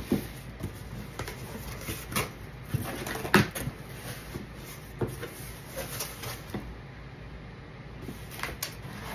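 Cardboard shipping box being opened by hand: scattered knocks, scrapes and rustling of cardboard as the flaps are worked open, with one sharp knock a little over three seconds in.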